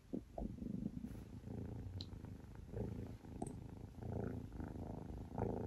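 Ragdoll kitten purring close up, a continuous low rumbling purr.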